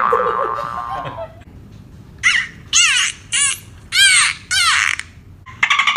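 Dolphin whistles and chirps played through a phone's speaker from an animal-sounds app: five short bursts of rapid, high-pitched arching chirps, starting about two seconds in.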